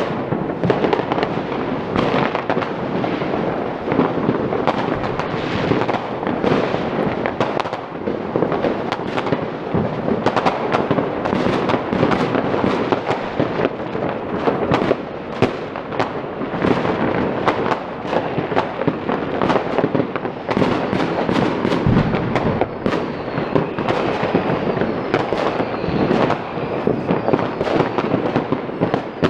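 Fireworks and firecrackers going off all around without pause: a dense, continuous crackle and popping of many bangs overlapping, with no break.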